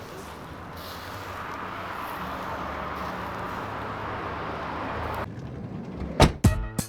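A steady, even background rumble and hiss that cuts off abruptly about five seconds in; music with sharp struck notes starts near the end.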